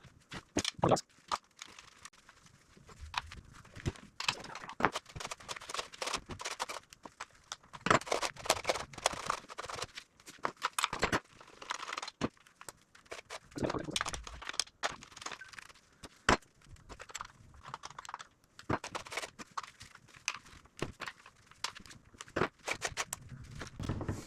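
Irregular clicks, clinks and rattles of hand work on a chainsaw as its bar and new chain are fitted back on and the parts are tightened down.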